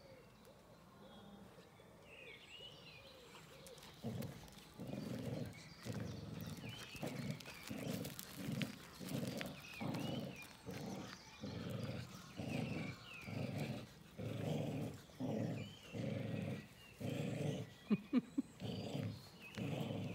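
A dog growling in play during a tug of war over a rope toy, in short growls that come in a steady rhythm, about three every two seconds, starting a few seconds in. A few sharper noises break in just before the end.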